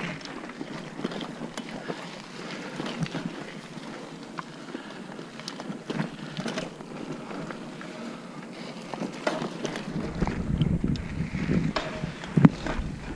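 Mountain bike riding over a dirt forest trail: tyres on dirt and roots, the frame and parts rattling with frequent sharp knocks, and wind on the microphone. About ten seconds in it grows louder, with a low rumble added.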